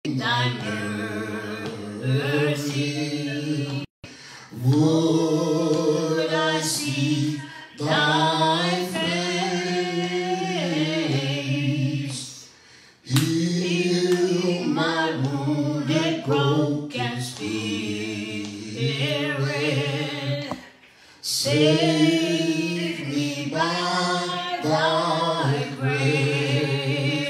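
A man singing solo and unaccompanied into a handheld microphone, in long, drawn-out phrases with brief pauses between them.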